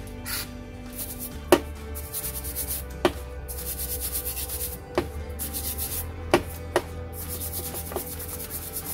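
Cleaning a motor scooter carburetor with carb cleaner: repeated short stretches of hissing and rubbing as the parts are sprayed and worked by hand, with about five sharp knocks as parts are handled.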